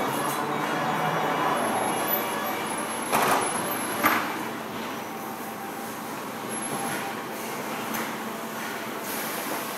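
Factory floor noise: a steady machine hum on an assembly line, with a brief clatter of parts about three seconds in and a sharp metallic knock about a second later.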